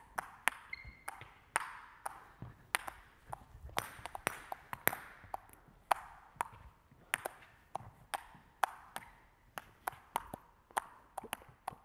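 Table tennis balls bounced up and down on two rackets: a stream of sharp ticks, about two to three a second and unevenly timed, each ringing briefly in the sports hall.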